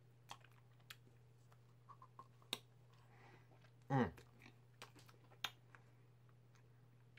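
Quiet mouth sounds of eating a push-up ice cream: scattered lip smacks and wet clicks as it is licked and sucked from its tube, with a short voiced "mm" that falls in pitch about four seconds in. A faint steady low hum lies underneath.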